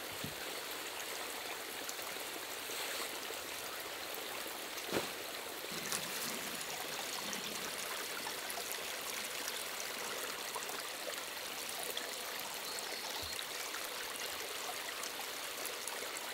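Steady hiss of falling or running water, with a single soft knock about five seconds in.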